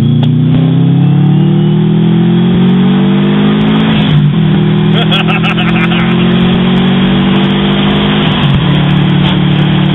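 Subaru WRX's turbocharged flat-four engine heard from inside the cabin, accelerating through the gears. Its pitch climbs steadily, drops at a gear change about four seconds in, climbs again, and drops at a second shift a little after eight seconds.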